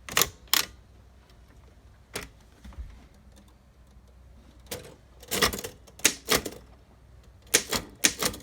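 1915 Underwood Type 5 manual typewriter being typed on: about a dozen sharp typebar strikes, coming irregularly in pairs and small clusters with pauses between.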